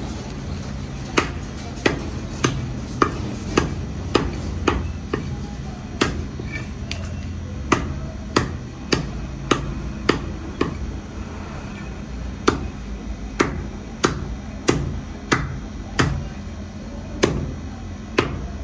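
A heavy knife chopping through catfish on a cutting block: a run of sharp chops, about one to two a second, with a short pause around the middle.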